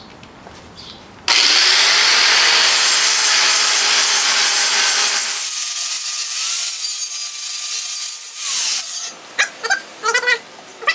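Angle grinder starting about a second in and grinding the burrs off drilled holes in a thin 16-gauge steel plate: a loud, even rasp of steel on the disc. After about four seconds the grinding eases to a lighter whine that winds down near the nine-second mark. A cat then meows several times near the end.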